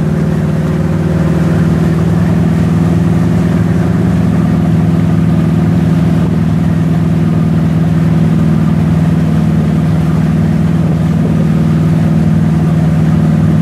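Wakesurf boat's inboard engine running steadily under load, a constant low drone, with the churning wake rushing behind the boat.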